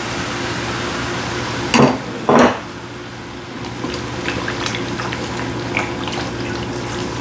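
Chicken broth poured into a hot flour roux, the pan sizzling with a loud hiss and two loud surges about two seconds in. The sizzle then dies down, and a utensil clicks and scrapes against the pan as the mixture is stirred.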